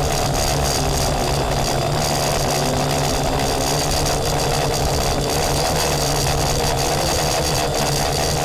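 Cheerson CX-35 quadcopter's motors and propellers running steadily as recorded by its own onboard camera: very loud, a constant hum with a thin high whine on top. The noise is worsened by the airframe vibrating, with the battery loose in its bay.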